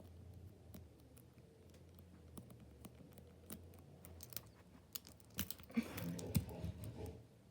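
Light scattered clicks of a TSA combination luggage padlock being decoded, its number dials turned and the shackle worked, with a denser run of louder clicks and knocks about five and a half seconds in.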